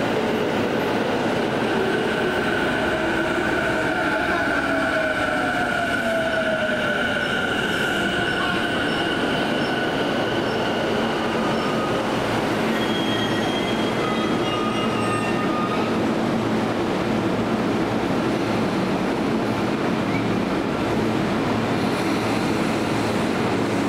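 Sotetsu electric commuter trains: a departing train's motors whine, rising in pitch as it pulls away. A second train then runs in along the platform with a constant rumble of wheels on rail, and brief high squeals come about 13 to 16 seconds in.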